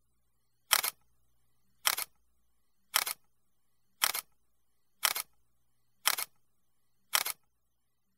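Camera-shutter click sound effect repeated seven times, about one a second, each a quick double or triple click. The clicks mark the letter tiles of an animated title popping on one by one.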